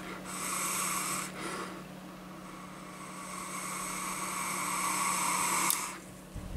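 Long hissing draw on a box-mod e-cigarette, air and vapour pulled through the tank's atomizer as the coil fires. The hiss eases off after about a second, builds up again and cuts off abruptly near the end.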